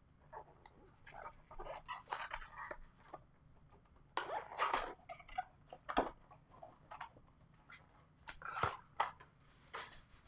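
Trading-card box and pack wrappers being opened by hand: irregular crinkling, rustling and tearing of packaging, with a couple of sharp clicks about six and eight and a half seconds in.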